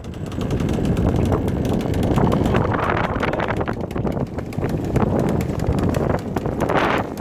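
Strong wind buffeting the microphone aboard a sailboat under way: a loud, gusty rumble with crackling, swelling and easing in gusts.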